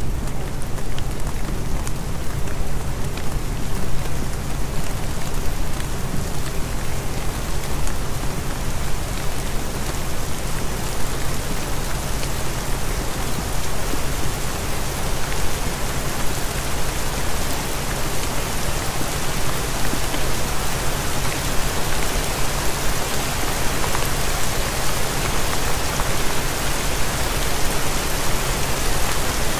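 Subliminal audio mix: a steady, rain-like hiss with low steady hum tones beneath it from the alpha-wave layer, and a faint steady 396 Hz pure tone.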